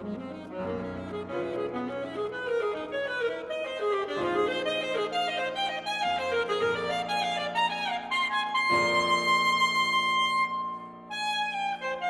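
Soprano saxophone and grand piano playing together in a fast, busy passage of rapid notes. Near the end the saxophone holds one long high note for about two seconds, breaks off, and the playing picks up again.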